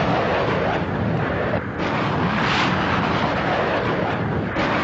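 Continuous roar of explosions, with a fresh surge about two seconds in and another near the end.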